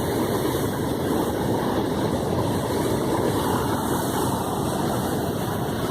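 Large waterfall in flood after heavy rain, pouring with a steady, deep, really loud rush of water.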